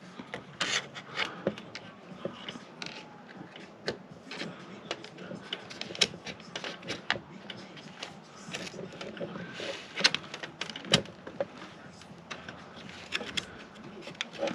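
Scattered light clicks and taps of a RAM stick being handled and pressed into a desktop motherboard's memory slot, with a few sharper clicks about six, ten and eleven seconds in.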